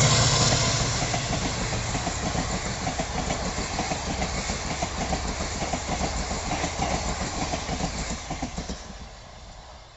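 WDP4 diesel locomotive's EMD two-stroke engine droning past and fading over the first couple of seconds. Passenger coaches follow, their wheels clicking rhythmically over the rail joints, and the clatter dies away near the end.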